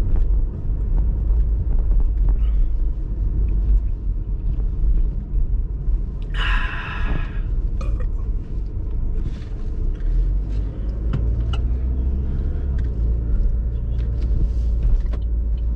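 Low, steady road and engine rumble inside a moving car's cabin. A short hiss comes about six seconds in.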